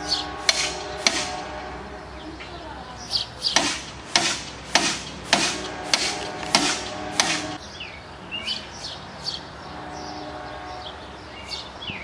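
Grade-crossing warning bell dinging sharply, in a steady run of strikes a little under twice a second in the middle, while the horn of an approaching Amtrak GE P42DC locomotive sounds in long blasts. A few bird chirps come in near the end.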